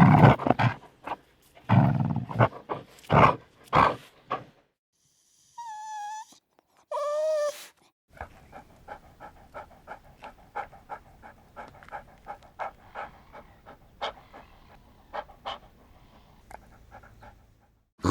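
Dog barking in a run of loud barks, then two short high whimpers with a wavering pitch, then a long stretch of rapid, rhythmic panting at roughly two to three breaths a second.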